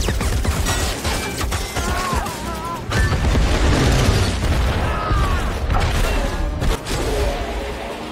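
Film battle soundtrack: explosions and gunfire from an air attack on a tank column, mixed with music, with many sharp booms over a heavy low rumble.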